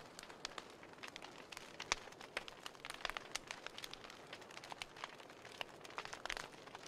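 Wood fire burned down to glowing embers, crackling: irregular sharp pops and snaps, several a second, over a soft hiss.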